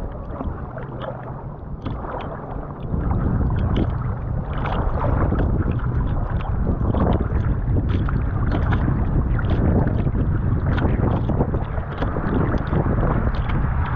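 Wind buffeting the microphone of a camera mounted on a kayak's bow, over water splashing and lapping against the hull. The wind rumble grows louder about three seconds in, with many short splashes on top.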